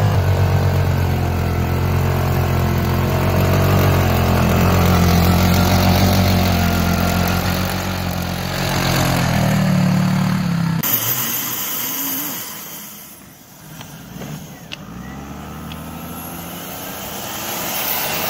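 Side-by-side UTV engine running hard as it pushes through deep snow, revving higher after about eight seconds. It breaks off suddenly about eleven seconds in, and after a quieter stretch a Toyota Land Cruiser's engine builds as the SUV ploughs through snow.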